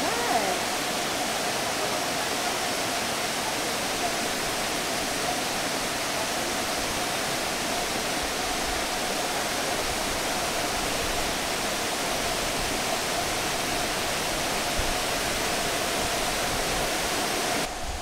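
Steady rush of Fukuroda Falls, a large multi-tiered waterfall, heard close by. The sound drops away abruptly near the end.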